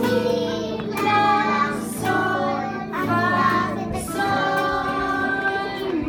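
Children singing a song together to strummed small acoustic guitars, keeping a steady beat about once a second.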